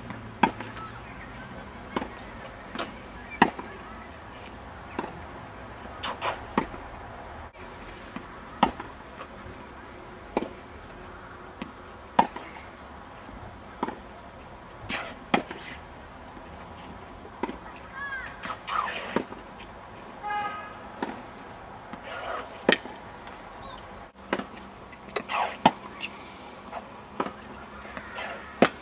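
Tennis balls struck by rackets and bouncing on the court in a practice rally: sharp pops about every second or so.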